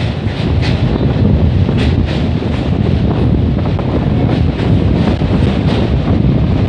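Express train running across a steel truss rail bridge, heard from an open carriage window: a loud, steady rumble with wind buffeting the microphone and sharp ticks about twice a second.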